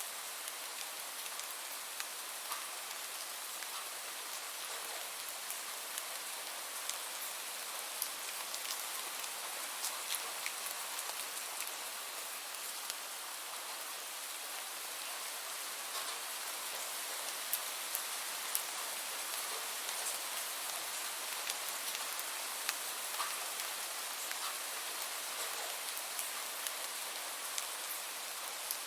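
Steady rain falling, an even hiss with many separate drops ticking and pattering on surfaces.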